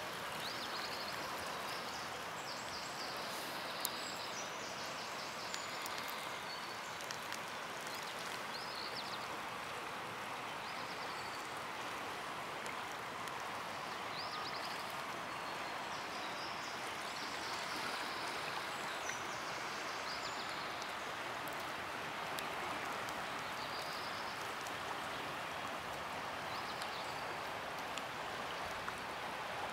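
Steady, even rushing of the fast-flowing Aare river, with short high chirps every few seconds.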